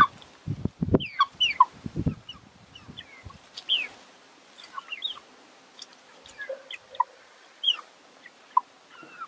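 A small flock of young chickens clucking and giving short chirping calls, scattered throughout. A few low thumps come in the first three seconds.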